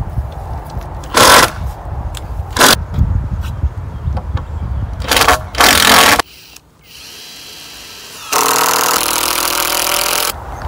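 Cordless drill driving screws into lumber: several short bursts, then one steady run of about two seconds near the end.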